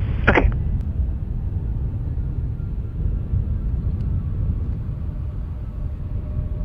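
Steady low rumble of distant jet airliner engines, with faint engine whine tones coming in near the end. A short radio squelch blip sounds about half a second in.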